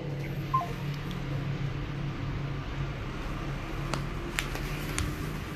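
A steady low hum of room noise, with a short high beep about half a second in and a few faint clicks near the end.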